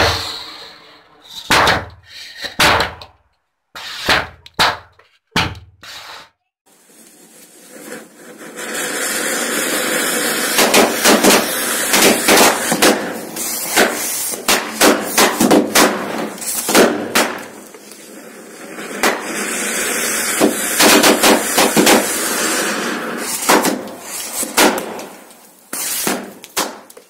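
Anar flower-pot fountain fireworks hissing as they spray sparks, with many bijli bomb firecrackers going off in sharp bangs. The hiss stops about a second in and a few scattered bangs follow; it starts again about seven seconds in, with bangs coming thick and fast over it until near the end.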